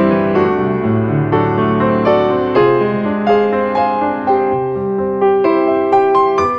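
Background piano music: a melody of single notes struck one after another over held lower notes.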